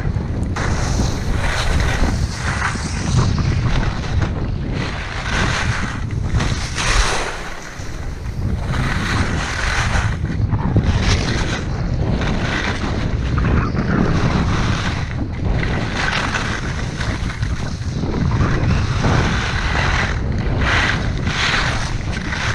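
Wind rumbling on the microphone during a downhill ski run, with the hiss of ski edges carving the snow at each turn, about once a second.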